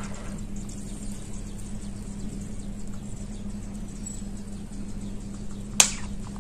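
Chunks of gray clay and multani mitti soaking in water, giving faint scattered crackling ticks, with one sharp snap near the end.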